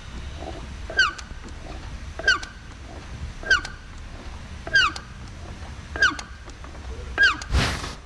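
A homemade clutch-feel assembly (concentric slave cylinder under Belleville disc springs) squeaking as the clutch pedal is pumped: a short squeak that drops in pitch on each stroke, about every second and a quarter, seven times over, with a low shop rumble underneath.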